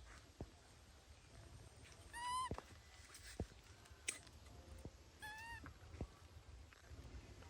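Baby monkey giving two short high-pitched calls, about three seconds apart, with a few faint clicks and taps around them.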